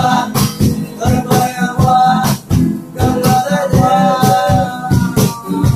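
Two acoustic guitars strumming chords while young men sing a Vietnamese pop ballad in unison, over a steady hand-played percussive beat.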